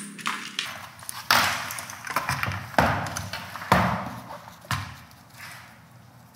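Knocks and rustling of computer hardware being handled on a desk: a power supply unit set down and its bundle of cables shifted. There are about four louder knocks, roughly a second apart.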